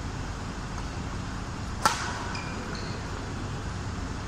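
A single sharp crack of a badminton racket striking a shuttlecock, about two seconds in, over a steady low background hum.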